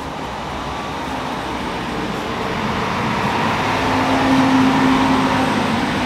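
Traffic on a busy road: a vehicle drives past, its noise swelling to a peak about four to five seconds in, with a steady engine hum, then easing off.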